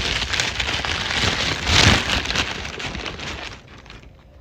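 Paper burger wrapper crinkling and rustling as it is unwrapped, loudest about two seconds in, dying away near the end.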